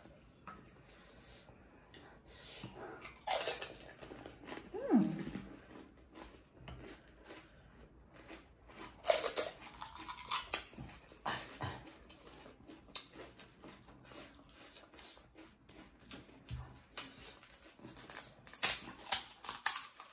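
Panipuri being eaten up close: crisp puri shells cracked open with the fingers and crunched while chewing, heard as scattered crackles and clicks, with a short falling whine about five seconds in.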